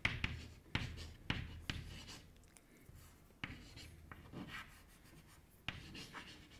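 Chalk writing on a chalkboard: a faint run of short scratches and taps as letters are written, with brief pauses between strokes.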